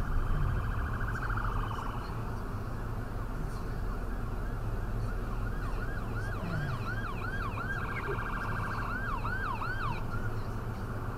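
Emergency vehicle siren: a fast buzzing warble near the start, then a run of quick rising-and-falling yelp sweeps, about three a second, from about halfway through, switching back to the buzzing warble briefly before more sweeps near the end. Under it runs steady tyre and road rumble, heard from inside the car.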